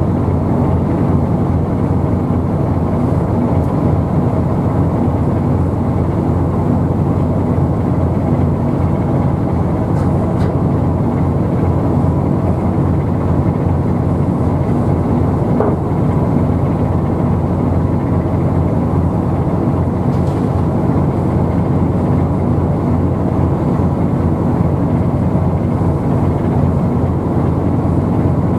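Steady low engine rumble with a faint hum, unchanging in level.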